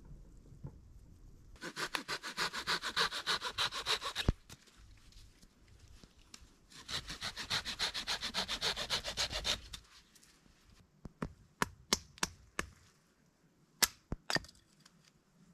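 Hand saw cutting a dead branch in quick back-and-forth strokes, in two bouts of a few seconds each; the first ends in a sharp crack as the branch snaps. Then a hatchet splitting firewood on a wooden chopping block, a run of sharp knocks near the end.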